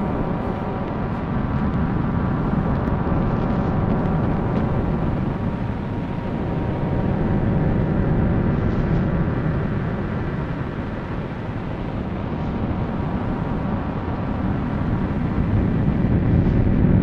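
Type II solar radio noise storm, set off by a coronal mass ejection, received on a shortwave radio: a steady rushing noise, heaviest in the low range, that swells and fades slowly, with faint steady tones above it.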